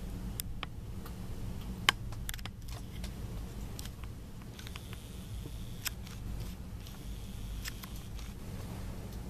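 Steady low rumble with a few sharp clicks scattered over it, the loudest about two seconds in.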